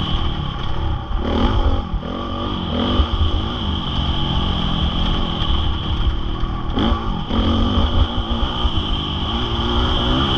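Honda CRF450R four-stroke single-cylinder motocross bike being ridden hard, its engine revving up and falling back again and again as the throttle is opened and closed.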